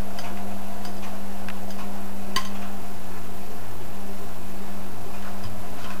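Front-loading washing machine running with a steady low hum, with a few light irregular ticks and taps over it, the sharpest about two and a half seconds in.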